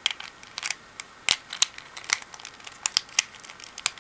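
Plastic pieces of a YJ Chilong 3x3 speed cube clicking as a loose piece is fitted back in and the layers are twisted. It makes an irregular run of short, sharp clicks.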